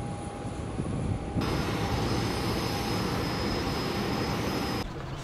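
Komatsu WT250E aircraft tow tractor running as it tows a jet airliner, mixed with steady apron engine noise and a constant high whine. The sound changes abruptly about a second and a half in and again just before the end.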